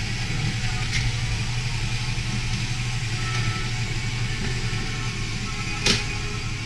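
Electric stand mixer running steadily, whipping egg whites for chile relleno batter. Two sharp clicks cut through: one about a second in, and a louder one near the end.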